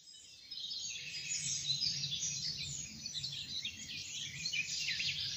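A chorus of many small birds chirping and twittering together, starting about half a second in, with a faint low hum beneath.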